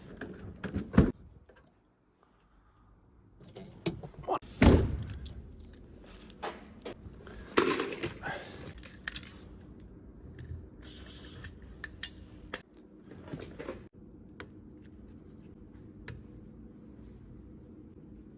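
Metal tools being handled: scattered sharp clicks and clinks with several heavier knocks and thuds, turning to sparse sharp clicks near the end.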